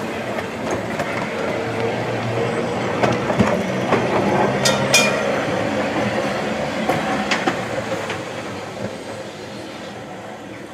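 London County Council tram 106, an open-top double-deck electric tram, running past on its rails: a steady rumble of wheels on track that grows louder as it draws alongside, with a few sharp clicks from the wheels about three to seven seconds in, then fades as it moves away.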